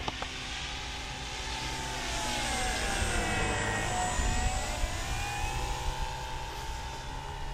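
Funtana S90 model aerobatic plane's motor and propeller running in flight during a close pass. The tone swells as the plane comes nearest about four seconds in, its pitch dipping and then rising again as it flies away.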